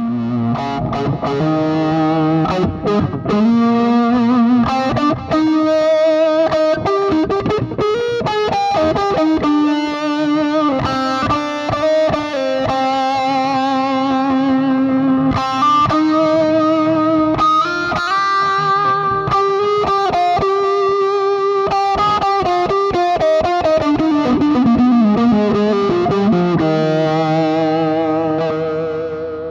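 Electric guitar played through a Lovetone Meatball envelope-filter pedal: a lead line of held notes, several with a wavering vibrato, trailing off near the end.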